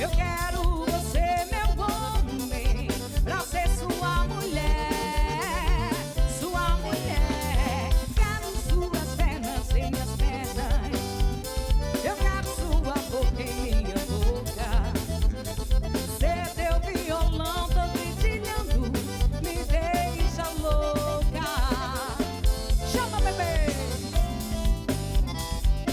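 Live band playing an instrumental break: a lead melody over bass and a steady drum beat.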